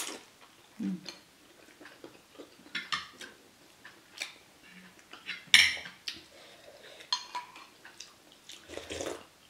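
Metal spoon clinking and scraping against a ceramic bowl and plate while eating meatballs, in scattered short clicks, with one louder sharp clink about halfway through.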